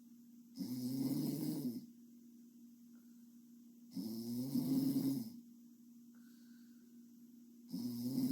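A sleeping girl snoring steadily: three rough, throaty snores, each about a second long and coming roughly every three and a half seconds, the last starting near the end, over a steady low hum.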